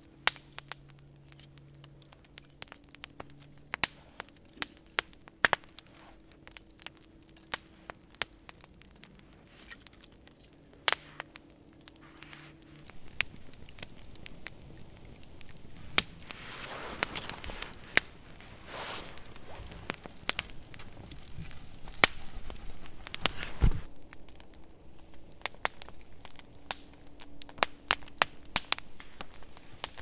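Pine log fire of split kindling on dead pine logs crackling, with sharp pops scattered throughout and a stretch of soft rushing noise in the middle.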